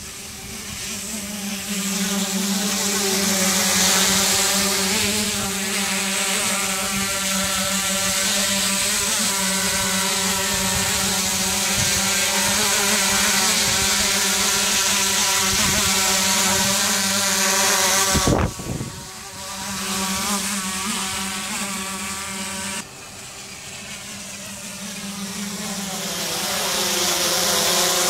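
DJI Inspire quadcopter's four rotors buzzing in flight, a whine whose pitch wavers up and down as the drone manoeuvres. It grows louder over the first few seconds as the drone closes in overhead. The level drops sharply twice, the first time right after a brief bump about eighteen seconds in, then builds again.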